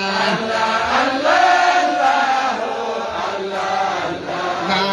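Islamic devotional chanting: voices singing a long, drawn-out melodic line of a religious song built on a repeated 'Allah, Allah' refrain, with the pitch rising and falling about a second in.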